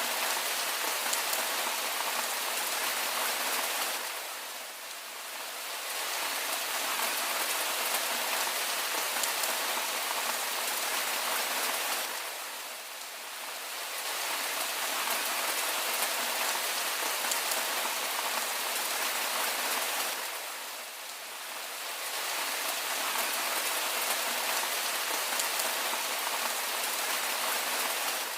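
Steady, even rain falling, a dense hiss of drops that eases briefly about every eight seconds.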